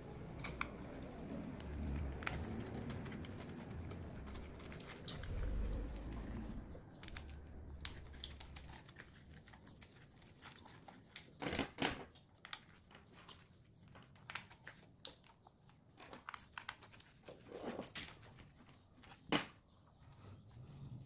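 Clicks, taps and rustling as a small screwdriver and a plastic lamp housing are handled in gloved hands. The first few seconds are mostly rustling; after that come scattered sharp clicks, a few of them louder.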